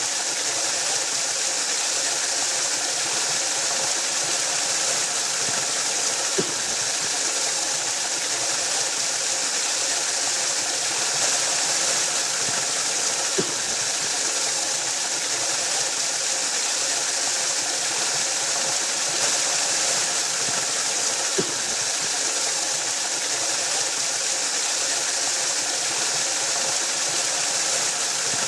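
Waterfall rushing in a steady, unbroken hiss, with a brief click about every seven to eight seconds.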